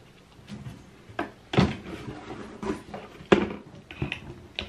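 Toiletry bottles being set down and shuffled inside a bathroom cabinet: several separate knocks and clatters.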